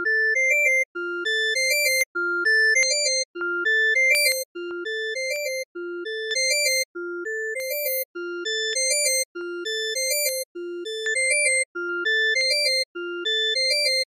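GridSound browser synthesizer looping a short UI sound effect: a few quick rising notes, repeating about once a second at 200 BPM. Its tone turns from soft to buzzier and brighter as the oscillator waveform is switched from triangle to sawtooth to an organ preset.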